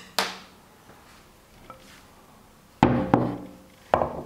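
Porcelain bowls knocked down onto a wooden board: one knock just after the start, then three heavier knocks with a brief ringing tail in the last second and a half, as the large bowl of risen dough is set in place.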